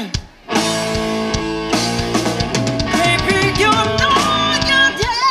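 Live blues-rock band playing, with electric guitar, bass guitar and drums. The music drops out almost completely for about half a second just after the start, then the band comes back in with wavering, bending high notes over held chords.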